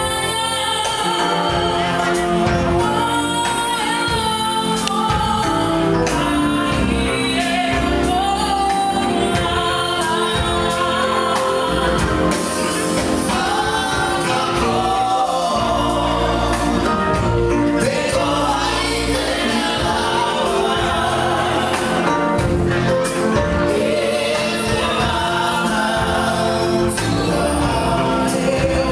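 Live music with a group of voices singing together over a steady bass, playing loud and even throughout.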